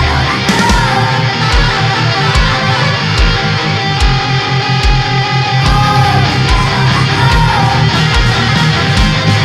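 Heavy metal instrumental music: distorted electric guitars over drums with a steady, evenly repeating kick beat and cymbal hits, and a melodic lead line that bends in pitch twice.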